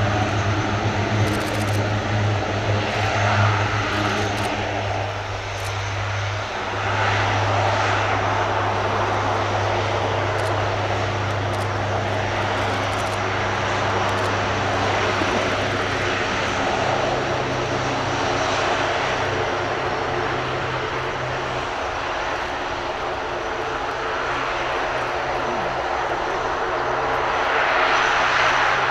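Lockheed C-130J Hercules' four Rolls-Royce AE 2100 turboprops with six-bladed propellers running while taxiing: a steady propeller drone over a deep hum. The hum shifts pitch about two-thirds of the way through, and the sound grows louder near the end.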